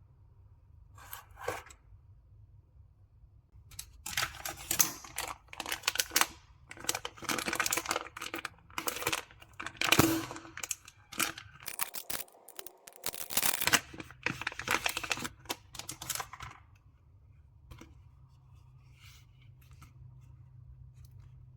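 Hands working on computer parts, with irregular scraping, rubbing and clicking from about four seconds in until near the end, over a low steady hum.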